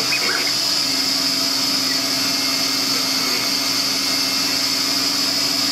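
Vacuum hold-down table running steadily while the CNC router's motors move the laser head through a cut. A steady hum from the moving machine starts about a second in and shifts slightly in pitch after about three seconds.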